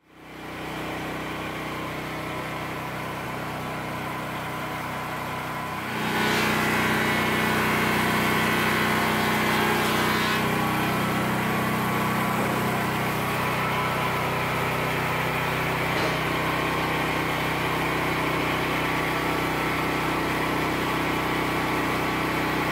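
A small engine running steadily at a constant speed. It gets louder about six seconds in.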